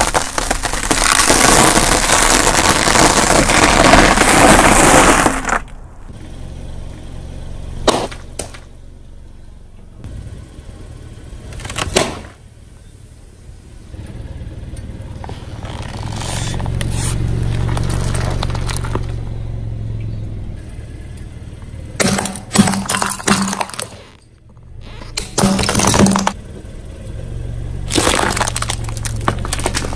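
A car tyre rolls over and crushes things: loud, dense crunching of dry toast for the first five seconds or so. After that the car's low rumble sits under scattered sharp cracks and bursts as fruit is flattened, with tomatoes popping under the tyre near the end.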